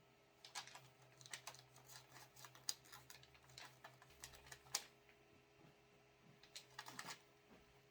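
Faint, irregular clicking and tapping from hands working the 3D printer during bed levelling: turning the levelling wheels and sliding the test paper under the nozzle.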